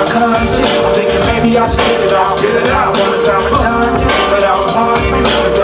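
Loud live hip-hop concert music: held chords over a steady beat, heard through the club's sound system from among the crowd.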